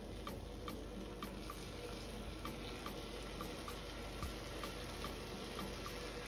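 A light, steady ticking beat, about two and a half ticks a second, over a soft hiss, from a background music track. Under it, syrup pours faintly from a glass jug onto baked kadayıf.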